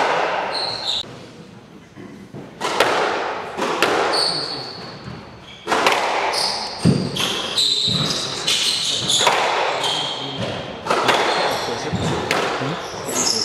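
Squash rally: the ball striking rackets and court walls about once a second, each hit echoing in the hall, with short squeaks of players' shoes on the court floor between hits. The hits begin a couple of seconds in, after a quieter pause between points.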